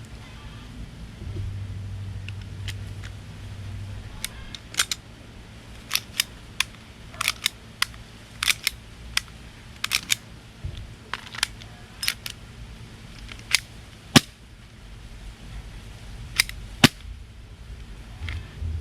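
Sharp, irregular plastic-and-metal clicks from handling an airsoft gas blowback pistol and its magazine, about two dozen of them starting some four seconds in.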